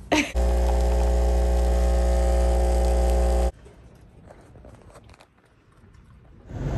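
A steady motor whir with a strong low hum and a hiss, starting and stopping abruptly after about three seconds, followed by faint clicks and rustling.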